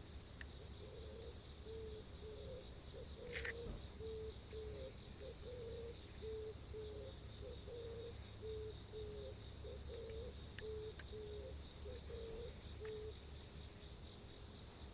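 Oriental turtle dove cooing its low, repeated hooting phrase about five times in a row, stopping near the end, over steady high-pitched insect chirring. A single brief sharp sound comes about three seconds in.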